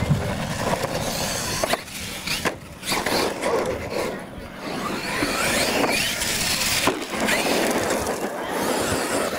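A radio-controlled monster truck driving on gravel: its tyres crunch and skid through the loose stones, and the motor's whine rises and falls as the throttle is worked.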